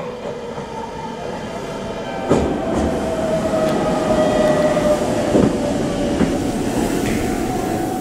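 Meitetsu 3500 series electric train pulling away from the platform, with a steady whining tone that sags slightly in pitch over the rumble of the train getting under way. There are a few knocks as it moves off. The whine is an unexplained abnormal noise that the uploader cannot identify.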